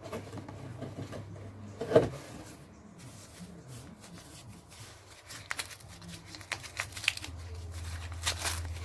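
Brown wrapping paper rustling and crinkling as a wrapped item is handled and opened, with one sharp knock about two seconds in and small crisp crackles in the second half.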